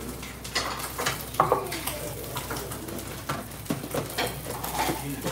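Serving-counter clatter: a ladle, a ceramic bowl and a plastic container knock and clink in scattered short strokes as boiled chickpeas are scooped from a pot into the bowl and set down.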